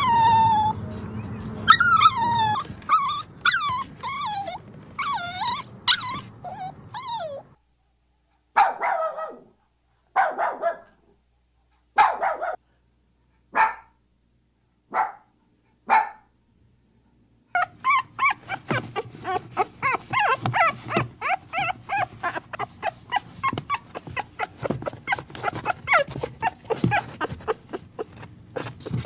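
Puppies and dogs vocalizing: first a run of high, bending whimpering cries, then seven short single calls about a second and a half apart with silence between, then a long run of quick, overlapping yips and whimpers.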